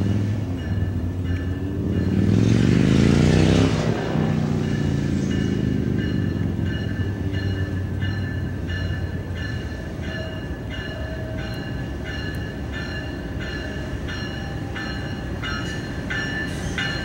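Norfolk Southern freight train led by GE diesel locomotives approaching and rumbling closer, with a grade-crossing bell ringing in a steady repeated ding. A loud rushing swell rises and passes about two to four seconds in.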